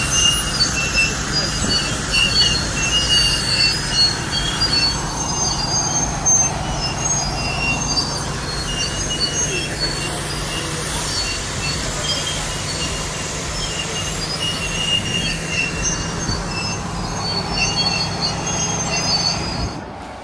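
Heavy machine's diesel engine running steadily, with repeated high metallic squealing on and off throughout.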